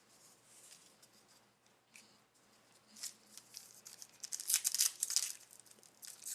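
Faint crinkling and tearing of a plastic trading card pack wrapper being opened, starting about three seconds in after a near-silent pause.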